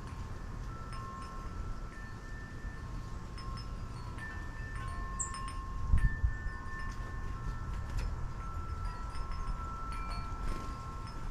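Wind chimes ringing, several long overlapping tones sounding one after another. Wind rumbles low beneath them, with a stronger gust about six seconds in.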